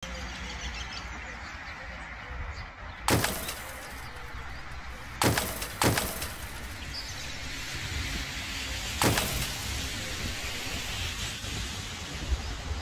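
Cocker spaniel barking sharply four times, once about three seconds in, twice close together past five seconds, and once about nine seconds in, over steady outdoor background noise.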